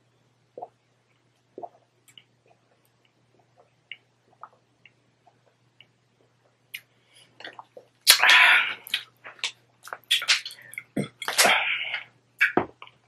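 A person drinking water from a plastic bottle: soft swallowing gulps about once a second. About eight seconds in, as the bottle comes away from the mouth, a series of loud noisy bursts follows.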